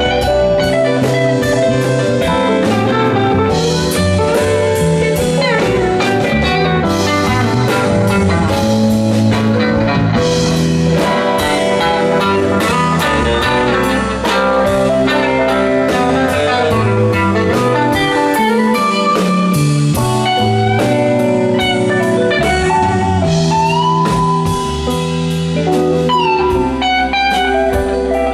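Live band playing an instrumental jam: electric guitar playing a lead line over electric bass and a drum kit.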